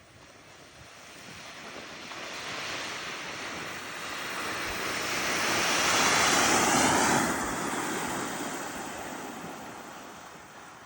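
Rushing, gritty hiss of a volcano board sliding down loose black volcanic gravel. It swells to its loudest about six to seven seconds in, then fades away.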